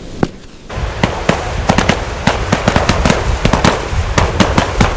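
Firecrackers going off: a couple of single bangs, then from about a second in a fast, dense string of bangs, many each second, over a low rumble.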